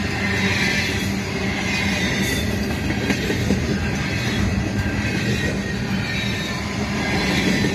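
Double-stack intermodal well cars rolling past close by: a steady rumble of steel wheels on rail.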